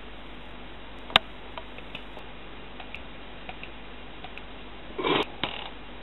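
Handling noises against a steady low hiss: one sharp click about a second in, a few faint ticks, then a short clatter about five seconds in and a single knock just after it, as a glass bottle and glass are handled on a table.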